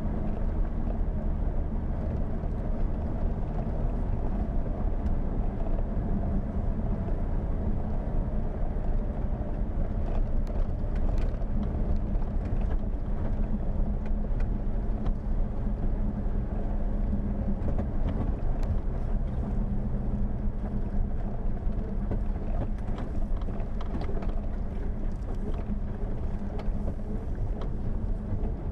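Jeep Wrangler driving slowly on a rough dirt track: a steady engine and drivetrain drone, with scattered clicks and rattles from about a third of the way in.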